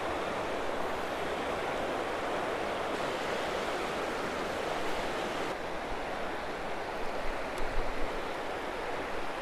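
Fast, shallow river riffle rushing steadily over rocks: an even hiss of running water.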